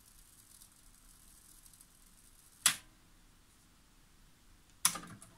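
Sharp mechanical clicks of hi-fi component buttons being pressed: one about three seconds in and a quick double click near the end, with faint hiss between them.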